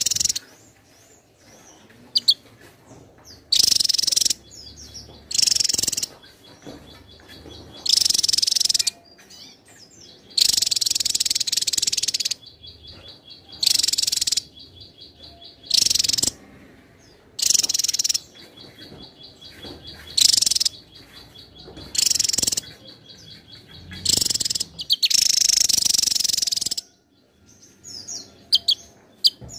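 Javan tesia singing: loud, high-pitched song phrases of about one to two seconds, repeated roughly every two seconds. A faint rapid ticking runs between the phrases.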